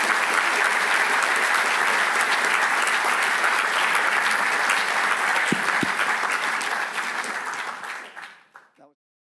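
Audience applauding at a steady level, then dying away and stopping shortly before the end.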